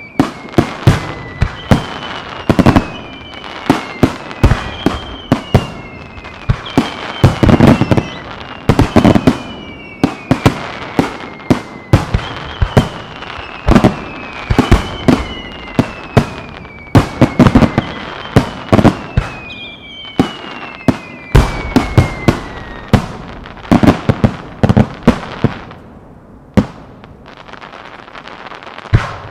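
Aerial firework shells bursting in a dense barrage, with sharp bangs several times a second and a run of whistles falling in pitch, about one a second. The whistles stop about two-thirds of the way through and the bangs thin out near the end.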